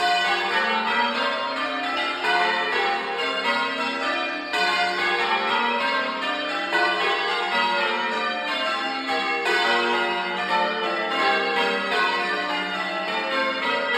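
Church bells being change-rung, heard from inside the belfry: the bells strike one after another in even rows about every two and a half seconds, their tones overlapping and ringing on.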